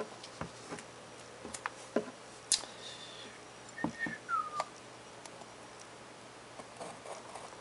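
Shrink-wrapped cardboard box being handled and tipped on a wooden desk: scattered light taps and clicks, one sharper click a couple of seconds in, and a short falling squeak about four seconds in.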